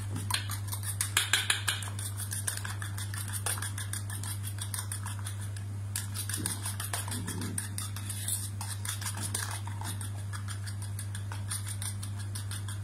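A fork beating eggs with grated pecorino, parmigiano and pepper in a bowl for carbonara: rapid, steady clicking of the tines against the bowl. A steady low hum runs underneath.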